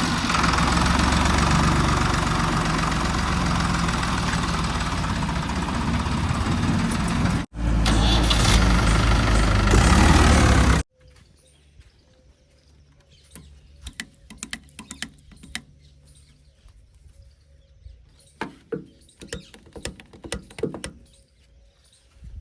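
A heavy diesel engine runs loud and steady close by, with a short break about seven and a half seconds in before it comes back louder. It cuts off abruptly about eleven seconds in, leaving a quiet stretch with scattered clicks and a faint low hum.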